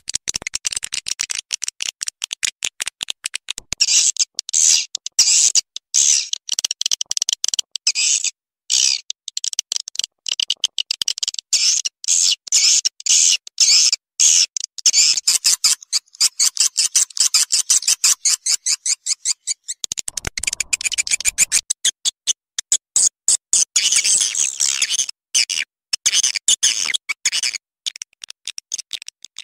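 Swiftlet lure-call recording: a mixed track of swiftlet chirps, rapid high twittering and clicking in dense runs with short sparser breaks, of the kind played to draw swiftlets into a nesting house.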